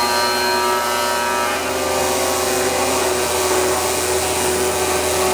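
TIG welding arc on an aluminium frame: a steady buzz and hiss.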